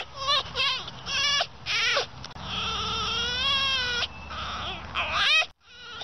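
Macaw chicks giving raspy, wavering begging cries. A quick string of short cries comes first, then one longer cry lasting over a second whose pitch rises and falls, then a few cries rising in pitch that stop abruptly near the end.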